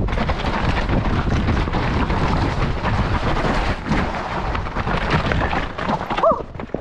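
Mountain bike riding fast down a steep, rough trail: a steady low rumble of tyres and the bike rattling over rocks and roots, with wind buffeting the microphone. It eases off just before the end.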